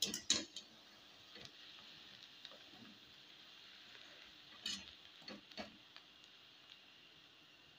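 Wooden spatula stirring a thick vegetable mixture in a metal pan: a few light taps and scrapes near the start and again about five seconds in, over a faint sizzle of the dish cooking.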